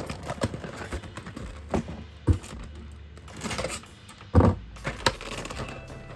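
Plastic toy packaging being handled: a series of light clicks and knocks, the loudest about two and four seconds in.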